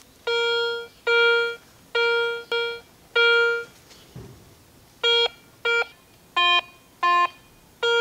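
Metal detector beeping as its search coil passes over metal targets: five half-second beeps at one pitch, two shorter ones at the same pitch, then four beeps at a clearly lower pitch. The pitch of the tone tells what kind of metal lies under the coil, precious metal such as silver or steel.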